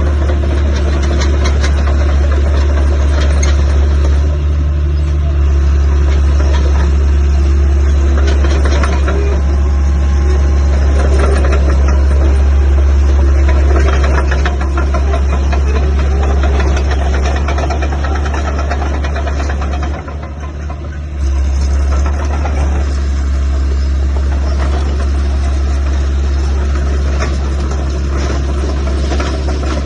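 Caterpillar D3C-III LGP bulldozer's diesel engine running steadily with a deep, even rumble, dropping briefly in level about twenty seconds in.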